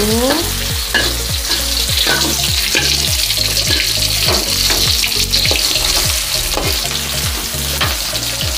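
Sliced onion and garlic sizzling in hot oil in an aluminium wok, softening. A metal spatula scrapes and stirs them against the pan in repeated strokes.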